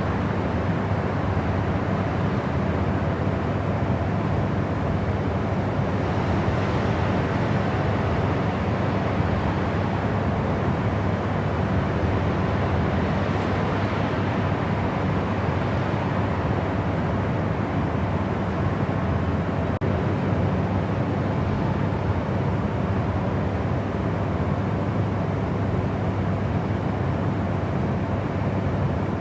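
Steady white-noise sleep sound: an unbroken rushing noise weighted toward the low end, with a faint steady hum under it and slight swells in the upper hiss now and then.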